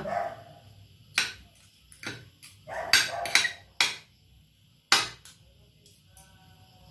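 Metal spoon and fork clinking and scraping against a ceramic plate while eating: a series of sharp, separate clinks, the loudest about five seconds in.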